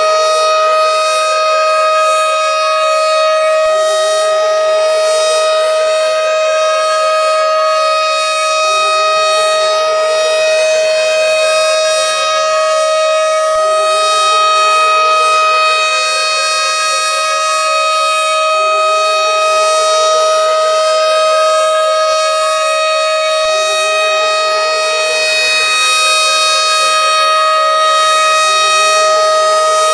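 Tornado siren sounding loudly and without a break. A steady high tone is held throughout, under a second tone that sweeps upward again and again, about every five seconds.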